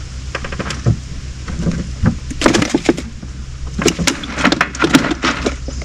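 Irregular clicks, knocks and clatter of gear being handled in a small fishing boat, bunched into two flurries, over a steady low hum.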